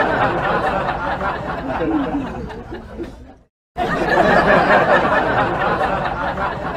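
Many voices chattering and laughing together, like a crowd, cutting out abruptly for a moment about three and a half seconds in before resuming.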